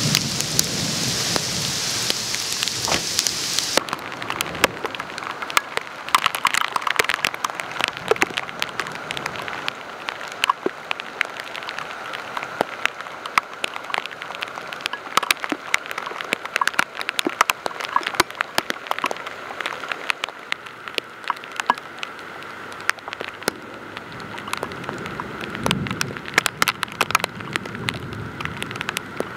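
Heavy rain pouring down on a river and the wet ground and trees around it: a dense steady hiss speckled with many sharp, close drop hits. The bright high hiss eases about four seconds in.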